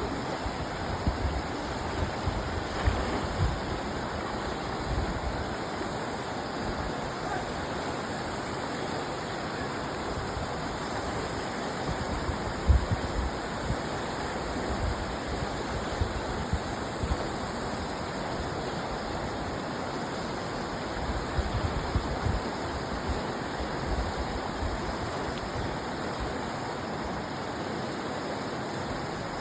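Steady rush of flowing river water, with irregular low rumbles and a brief louder knock about halfway through.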